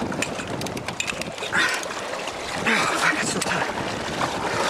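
Steady rush of sea and wind at the stern of a sailing boat under way, with a few faint clicks and two louder bursts of sound about one and a half and three seconds in.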